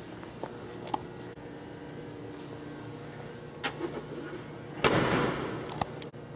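Trunk lid of a 1974 Chevrolet Monte Carlo slammed shut about five seconds in, a loud bang that dies away over about a second, followed by a couple of sharp clicks. A few lighter knocks come before it over a steady hum.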